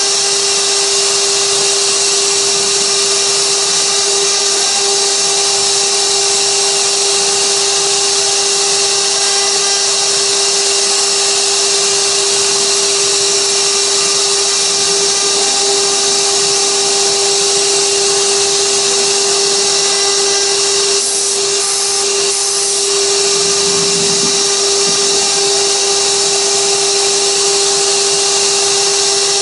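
High-speed spindle of a 6060 desktop CNC router running with a steady, high whine as its bit carves a 3D relief in wood. The sound briefly drops and changes about three quarters of the way through.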